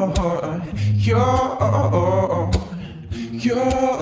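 Music: a voice singing long, wavering notes on a chorus line of a Christian pop song, over a steady low bass, with a dip between phrases about three seconds in.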